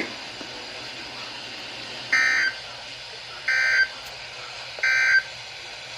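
Three short, identical bursts of Emergency Alert System (SAME) digital data tones, a little under a second and a half apart, over a weather radio's faint steady hiss: the end-of-message code that closes a broadcast weather alert.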